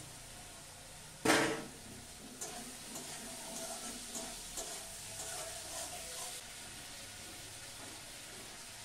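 Green peas tipped into a hot wok of frying potatoes and spices: a sudden loud burst of sizzle about a second in, then a metal spatula scraping and stirring the pan for a few seconds over a steady sizzle.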